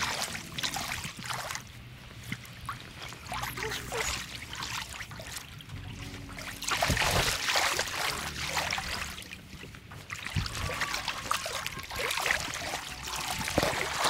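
River water splashing and lapping close to the microphone in uneven surges, loudest about seven seconds in.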